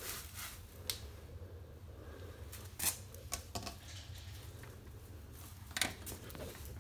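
A locked sliding glass door being tugged by hand, its frame rattling with a few sharp clicks and knocks, the strongest about three seconds in and again near the end: the lock is holding it shut.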